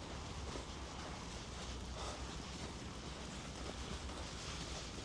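Outdoor street ambience with a low steady rumble and soft, evenly spaced footsteps in snow.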